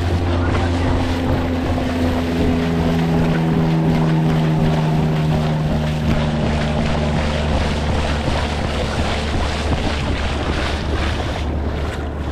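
Surf washing up the beach with wind buffeting the microphone, a loud steady rush with a low rumble. A steady drone runs under it through the first half.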